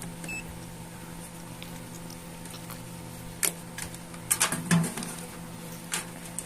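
Hands handling a multimeter and its test leads: a short electronic beep just at the start, then a few scattered clicks and knocks, over a steady low hum.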